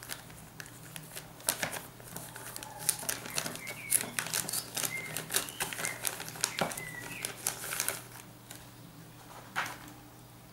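Clear plastic zip-lock bag crinkling and crackling in the hands as sunglasses are taken out of it, a quick irregular run of clicks and rustles. It dies down after about eight seconds, with one more sharp click about a second later.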